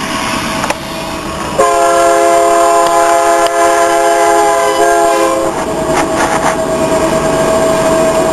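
Union Pacific freight locomotive's multi-chime air horn sounding one long chord for the grade crossing, about a second and a half in, cutting off about four seconds later, over the steady rumble of the train rolling by. A single steady tone carries on after the chord stops.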